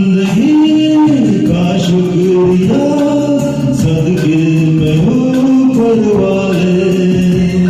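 Instrumental interlude of a Hindi film song backing track: a melody of held notes that slide up and down over a steady beat.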